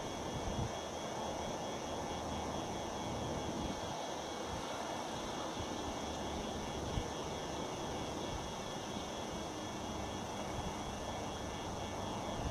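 Freight train cars rolling on the rails: a steady rumble of wheels on track with a few short clanks, one about seven seconds in.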